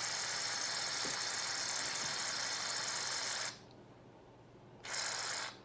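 Aerosol shaving cream can hissing as foam is sprayed out in a long steady burst that stops abruptly about three and a half seconds in, then a second short burst near the end.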